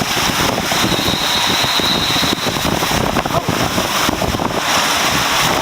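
Rushing water and wind buffeting the microphone during a ride down a waterslide, a loud, steady rush of noise.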